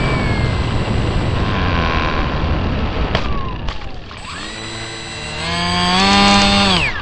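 Model Coot amphibian's motor and propeller heard from on board: a rushing noise for the first few seconds. Then, about four seconds in, the motor speeds up to a steady high-pitched whine with many overtones, and it cuts off sharply near the end, the pitch sliding down.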